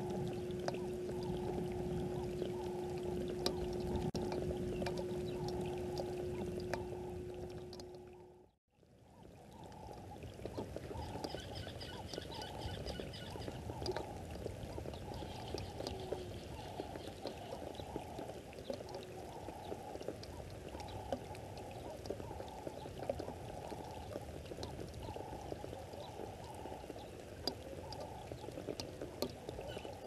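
A steady crackling, rushing noise. A low steady hum runs under it for the first eight seconds and ends at a sudden cut. A few high bird chirps come around twelve seconds in.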